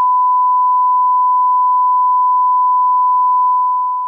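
Broadcast line-up test tone played with colour bars: one steady, pure, high beep that fades out near the end.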